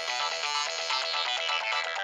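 Samsung SGH-D500 mobile phone ringtone playing: a quick electronic melody of short notes, several sounding at once.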